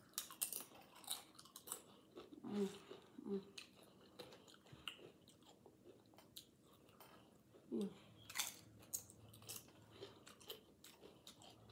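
Tortilla chips with salsa being bitten and chewed close to the microphone: a run of short, sharp crunches with wetter chewing between them.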